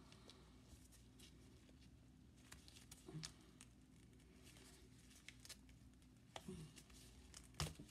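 Mostly quiet, with faint scattered ticks and rubbing as a silicone mold is peeled off a cast resin lid by gloved hands, and a sharper click near the end.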